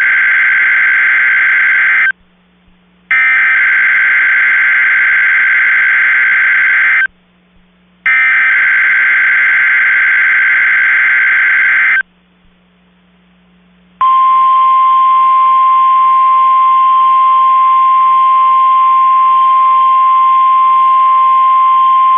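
NOAA Weather Radio Required Weekly Test alert signal. First come the coded SAME data bursts, harsh two-pitch warbling: the tail of one burst, then two more of about four seconds each, a second apart. About fourteen seconds in, the warning alarm starts, a single steady high tone that is still held at the end.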